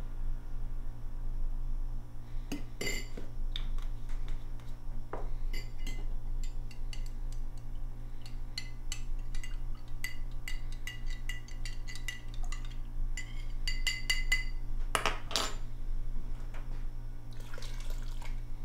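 A metal spoon stirring inside a glass, clinking rapidly and repeatedly against its sides with a bright ring, then a couple of heavier knocks. Near the end comes a short rush, as of something being poured into the brew pot, all over a steady low hum.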